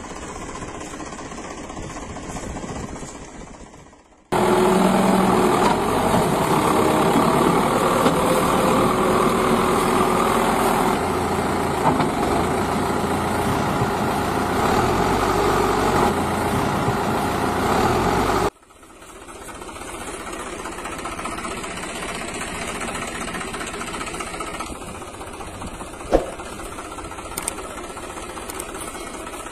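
An engine running at a steady idle with a knocking beat. A louder stretch cuts in abruptly about four seconds in and cuts out again near eighteen seconds. A single click comes near the end.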